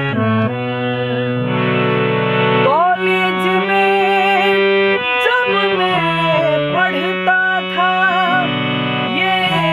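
Instrumental interlude of a Bhojpuri song: a lead melody with wavering pitch bends over a steady bass and accompaniment.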